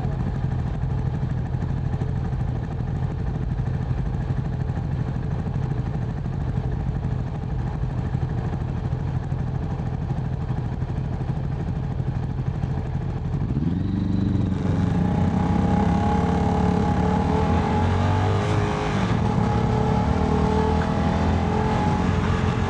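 CFMoto 300NK single-cylinder motorcycle engine running at a steady cruise with wind rush, then accelerating a little past halfway, its pitch rising and the engine growing louder.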